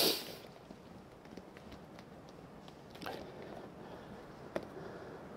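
Faint handling noise of hands pressing and folding an EPDM rubber patch around a pitch pan. A brief loud rub comes right at the start, a softer one about three seconds in, and a single click near the end, with small crackles between.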